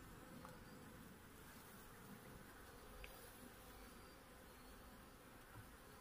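Faint, steady buzzing of honeybees swarming over an opened hive, from a defensive colony that is agitated by the inspection.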